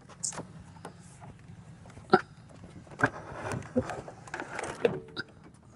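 Light clicks and knocks from a trolling motor shaft and its clamped transducer mount being handled and moved to check that it stows, with one sharp click about two seconds in and a cluster of knocks a second later.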